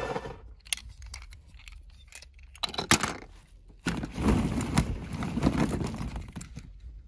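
Hollow plastic play-pit balls clattering and knocking together as a hand rummages through them in a plastic tub: scattered sharp clicks, a loud one about three seconds in, then a longer stretch of clattering from about four to six seconds.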